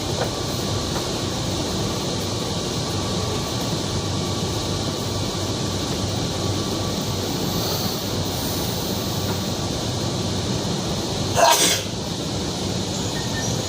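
Steady interior hum of a metro car standing at a station, with its air conditioning running. About eleven and a half seconds in comes a single short, loud burst of noise.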